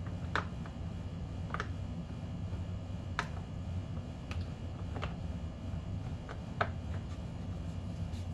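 Scattered light clicks and taps of small plastic HVAC housing parts being handled and fitted, about six in all at irregular intervals, over a steady low hum.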